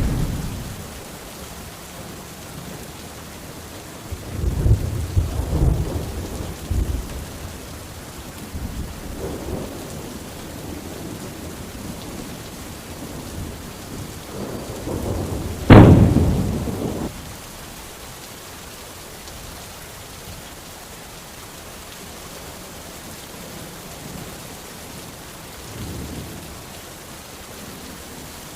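Steady rain with distant thunder rumbling a few times, and one sharp, loud thunderclap about halfway through that rolls away over a second or so.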